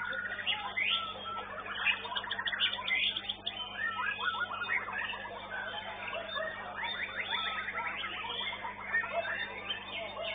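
Several caged competition songbirds singing at once: fast trills, chatter and rapid repeated notes overlapping without a break, over a steady low electrical hum.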